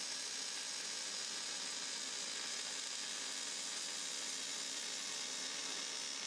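Jefferson 180 amp MIG welder running a continuous bead along the long edge of a roll-cage fixing plate on a car floor: the arc gives a steady, even hiss that cuts off at the end.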